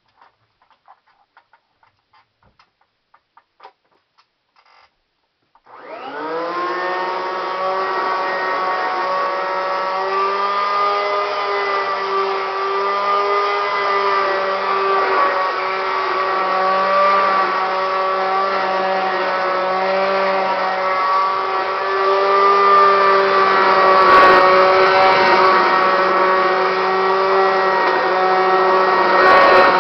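Kirby Classic 1-CR upright vacuum cleaner switched on after a few faint clicks, its motor spinning up within a moment and then running loud and steady with a whining, several-toned hum that grows slightly louder near the end. The noise comes from its worn-out motor bearings.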